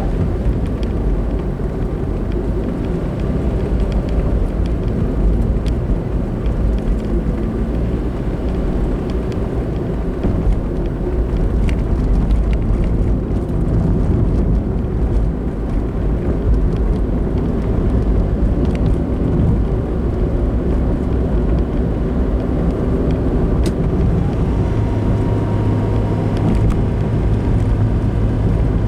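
A car driving along the road: steady engine and road noise heard from inside the cabin. Near the end a steady low hum joins in.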